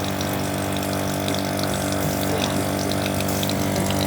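Second-hand refrigerator compressor running as an air compressor: a steady electric motor hum with a hiss over it.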